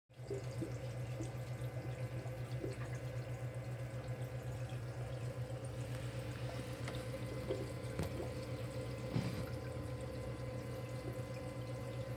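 Secondary drain line gurgling, with water trickling and small burps of air passing through it, over a steady low hum.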